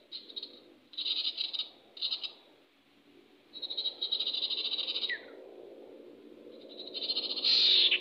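A small bird's rapid, high trilled calls, given in short bursts and then a longer trill, with the loudest trill near the end. A lower buzzing sound runs underneath from about the middle on.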